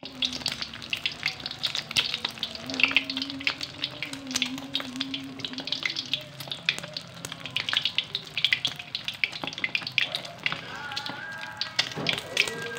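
An egg deep-frying in hot oil in a wok, the oil sizzling and crackling with a dense, irregular run of sharp pops.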